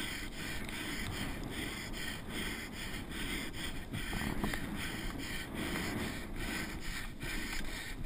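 Downhill mountain-bike rider breathing hard in quick, rhythmic gasps while racing, over wind on the microphone and the rumble of tyres across rough grass.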